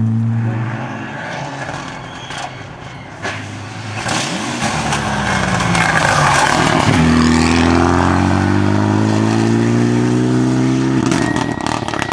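Rally car engines at high revs: one car's note fades away, then a Renault Mégane rally car comes in at full throttle, its engine note held high and slowly rising for about four seconds before it lifts off. A run of sharp pops follows near the end.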